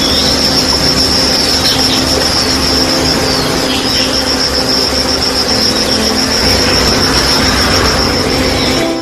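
A loud steady rushing noise with a continuous high, rapidly pulsing insect trill of crickets above it, and short falling chirps every second or two.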